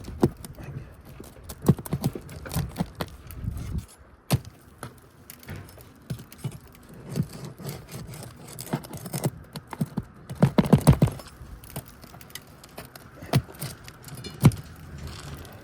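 Scattered clicks, scrapes and knocks of a roofing pry tool working under old, brittle shingle tabs to get at the nails, with a denser run of knocks about ten and a half seconds in. A low rumble under it stops suddenly about four seconds in.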